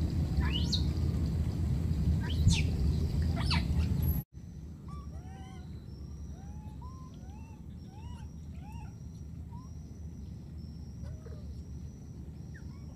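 High animal calls: three steep rising squeals over a loud low rumble of noise. After an abrupt drop about four seconds in come a run of short, arched chirps, about two a second, over a faint steady high whine.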